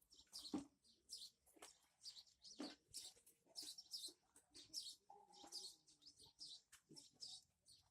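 Small birds chirping faintly, with many short, high chirps repeating throughout.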